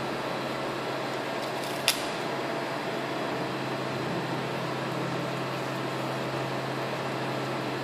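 Steady low room hum, like a fan or air conditioner, broken once about two seconds in by a short, sharp tear as a strip of masking tape is ripped off the roll.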